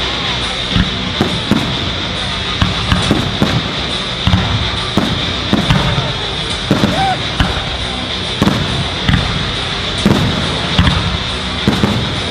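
Fireworks display: aerial shells bursting in a run of sharp bangs at irregular intervals, sometimes several within a second.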